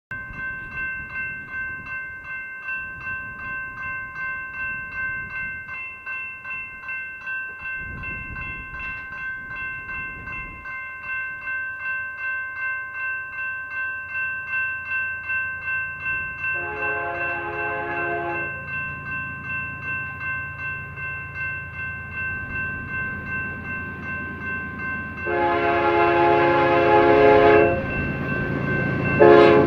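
Railroad grade-crossing bell ringing steadily as a BNSF freight train approaches. The locomotive's multi-note horn sounds for the crossing about halfway through and again, longer, a few seconds later, with a third blast starting at the very end. The low rumble of the oncoming train grows beneath.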